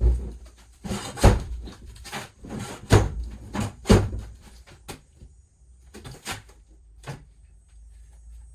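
A run of sharp knocks and clatters, like parts being pulled and handled during teardown work, with three heavy hits at about one, three and four seconds in, then a few lighter knocks that thin out.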